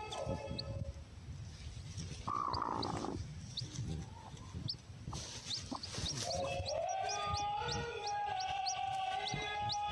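Newly hatched chick cheeping in short, high, rising peeps, several a second through the second half, over background music with a long held melody.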